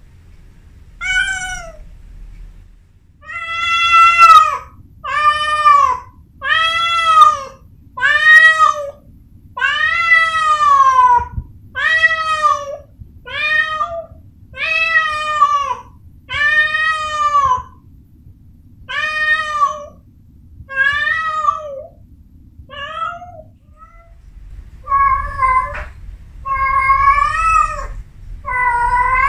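Female Persian cat in heat for the first time, yowling to call a male: a long run of drawn-out calls, about one every second and a half, each rising then falling in pitch. Near the end the calls grow longer and waver.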